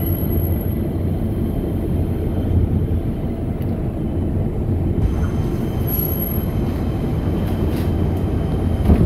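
Bombardier R142 subway train running at speed, heard from inside the car: a steady, loud low rumble of wheels on rail. Two brief faint high squeals come just after the start and about six seconds in, and there is a knock just before the end.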